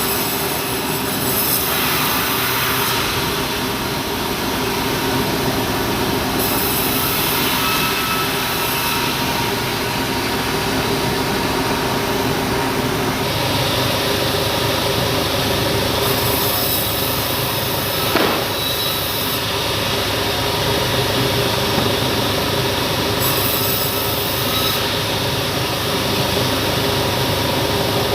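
Sawmill bandsaw machine running steadily. A bright hiss comes and goes four times, and there is a single short knock about two-thirds of the way through.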